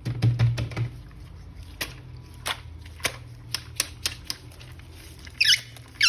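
Plastic toy packaging being handled and opened: irregular clicks and crinkles, with a couple of short squeaky rasps near the end.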